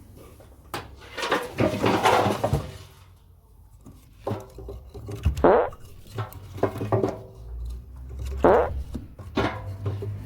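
Pieces of wood tumbling and knocking against the steel drum of a Hoover washing machine: irregular knocks and clanks about every second, several ringing briefly with a falling pitch, over the low hum of the machine's motor.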